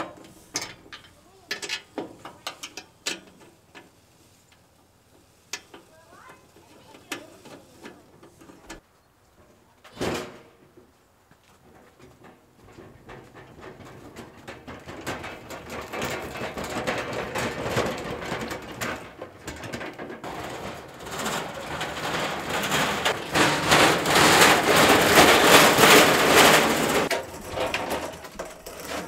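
Clicks and knocks of hardware being fitted under a pellet grill, with one heavier knock about a third of the way in. Then a dense rattling clatter, like a metal grill being rolled or dragged across a floor, builds and is loudest near the end.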